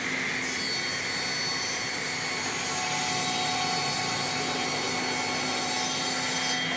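Woodworking machine running steadily: an even, loud hiss with several steady whining tones over it.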